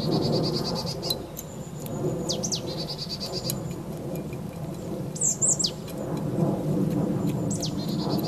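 A small bird singing short phrases every couple of seconds, each a sharp falling whistle, twice followed by a fast buzzy trill. Under it runs the steady low rumble of an airplane passing overhead.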